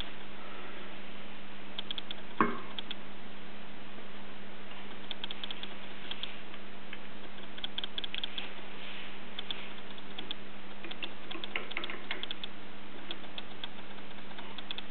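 Light clicks and taps of hands handling a glass bottle and a metal clamp stand, in scattered clusters, with one sharper knock about two seconds in, over a steady low hum.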